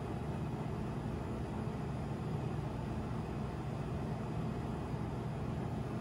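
Steady low mechanical hum of kitchen room noise, even in level throughout; the pudding being poured into ramekins makes no distinct sound.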